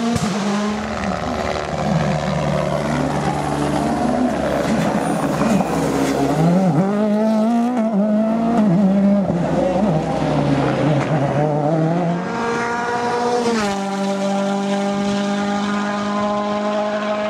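World Rally Car's 1.6-litre turbocharged four-cylinder engine at high revs, its pitch climbing and dropping repeatedly with gear changes and throttle lifts. About three-quarters of the way through, the pitch falls sharply and then holds a steady note.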